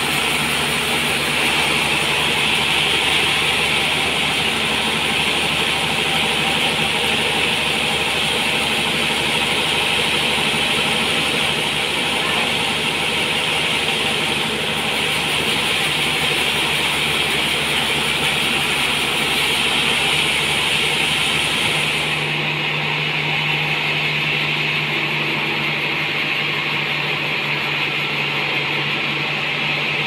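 Band sawmill running steadily as it saws a large trembesi (rain tree) log, the motor and blade making a loud, even mechanical hiss. About two-thirds of the way through, the sound changes abruptly: the highest hiss drops away and the low hum shifts.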